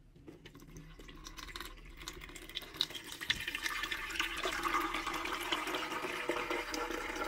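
Brewed tea pouring from a pot into a cloth tea-filter bag in a mesh strainer: a liquid pour that starts faint and grows louder over the first few seconds, then runs on steadily.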